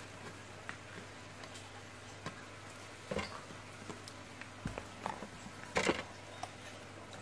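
Scattered light clicks, taps and small knocks of tools and parts being handled during work on an amplifier, with a louder cluster about three seconds in and the loudest about six seconds in, over a steady low hum.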